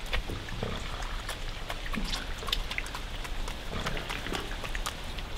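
Raccoons feeding at the edge of a shallow stream: water trickling over rocks, with scattered sharp clicks and a few short low calls.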